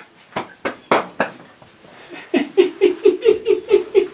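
A few sharp knocks, then a man laughing in a quick rhythmic run of pulses, about five a second.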